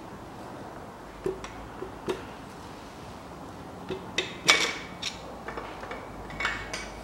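Metallic clicks and knocks from a screwdriver tapping and prying at the connecting rods and pistons of a stripped engine block, as a rod and piston are pushed out. The loudest clank, about four and a half seconds in, rings briefly.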